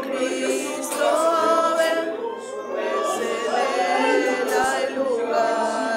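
Congregation singing together unaccompanied, several voices overlapping.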